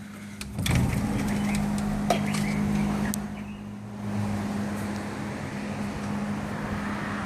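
Construction drill running steadily in the hotel's ceiling: a constant low hum with a rough grinding over it, starting after a few knocks about half a second in. An ungodly noise.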